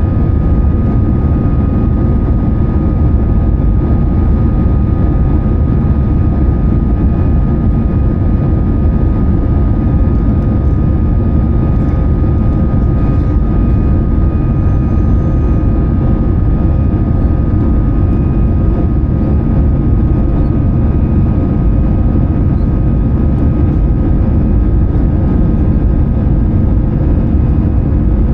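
Steady drone of an Airbus A320-214 heard inside the passenger cabin: engine and airflow noise, deep and even, with a faint steady whine above it.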